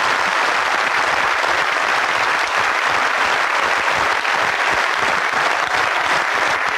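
A large auditorium audience applauding steadily.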